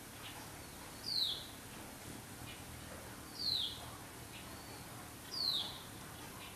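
A bird calling: a short, high note falling in pitch, repeated three times at about two-second intervals.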